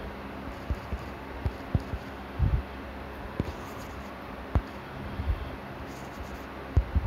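Fingertip taps on a smartphone touchscreen while a phone number is keyed in and a SIM is chosen for the call: a string of irregular soft knocks, picked up by the phone's own microphone over a steady low hiss.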